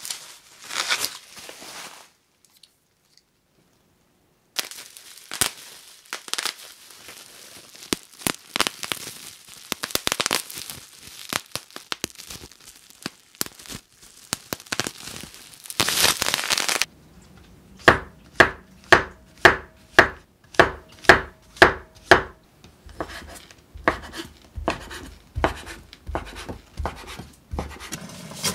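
Plastic bubble wrap crinkling and tearing as it is unwrapped, with many small crackles. Then a run of about nine evenly spaced sharp knife chops on a cutting board, followed by lighter scattered taps.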